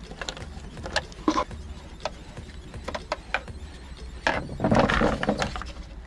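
Plastic instrument cluster bezel of a 1995 Daihatsu Hijet being handled and pulled loose from the dashboard: scattered light clicks and taps, then a louder scraping rustle for about a second near the end.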